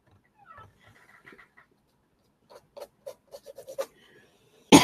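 Small dog panting softly in quick short breaths, about six a second. Near the end a sudden loud burst cuts in, the start of a cough.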